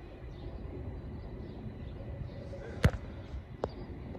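Railway platform ambience: a steady low rumble while an electric train approaches in the distance. A sharp knock sounds about three seconds in, followed by a lighter click under a second later.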